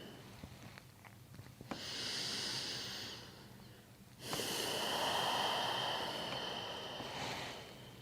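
A person doing ujjayi breathing, the audible breath drawn through a narrowed throat: one breath of about a second and a half, then a longer, louder one of about three seconds. A few faint clicks come between them.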